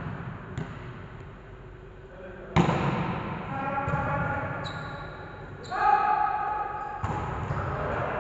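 A volleyball being hit back and forth, three sharp slaps of the ball echoing in a large gym hall, with players' voices calling between the hits.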